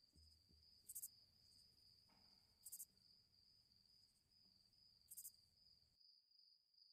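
Near silence, with a faint, steady high-pitched chirring like crickets. Three short high hissy bursts come at uneven gaps, and a faint low rumble stops near the end.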